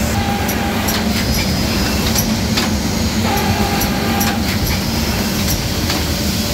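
Automatic box case making machine running: a steady mechanical hum with sharp clicks repeating about twice a second.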